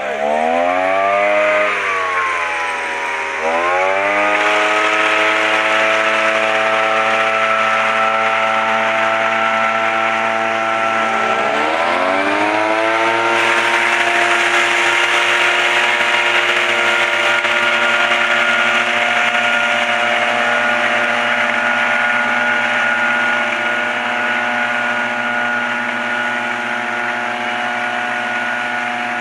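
Two-man tea harvester's small petrol engine running. It revs up, drops back and picks up again about three seconds in and again about eleven seconds in, then holds a steady high speed.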